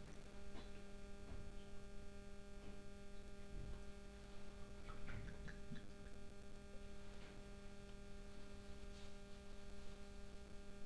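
Steady electrical mains hum, with a few faint scattered clicks.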